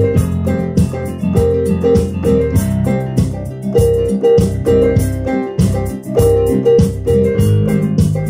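Yamaha Motif XF synthesizer keyboard played with both hands in a piano-like voice: held low notes under a repeating higher figure, in a steady rhythm.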